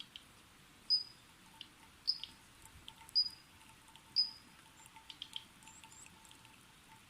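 A bird calling: four short, high whistled notes about a second apart, with softer chirps between them and a faint, evenly pulsing tone lower down.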